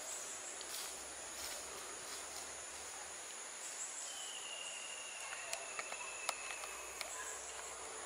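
Insects droning steadily at a high pitch in tropical forest. About halfway through, a thin high tone holds for roughly three seconds, and a few sharp clicks come in the second half.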